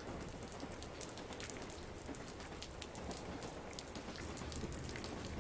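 Steady rain: an even hiss with scattered sharper drops ticking through it.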